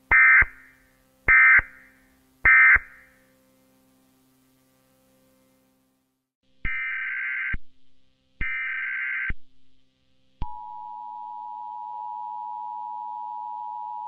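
Emergency Alert System SAME data tones: three short buzzing data bursts a little over a second apart, the end-of-message code, then two longer data bursts a header for the next alert. About ten seconds in, the steady two-tone EAS attention signal starts and holds.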